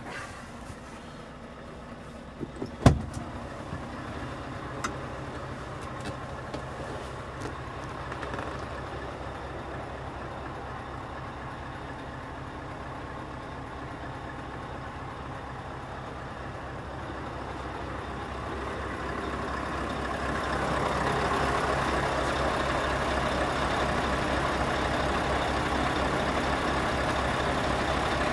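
Scania R580's V8 diesel idling steadily, with one sharp loud thump about three seconds in. The engine sound swells and grows fuller about twenty seconds in, then holds steady.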